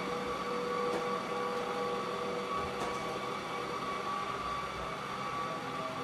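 Ecovacs robot vacuum cleaner running: a steady whir from its suction fan and motor, with a faint steady whine.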